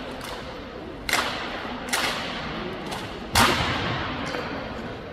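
Sharp slaps and knocks of a drill team's rifles being handled in unison. There are three clear strikes about a second apart, the loudest about three and a half seconds in, and fainter ones around them.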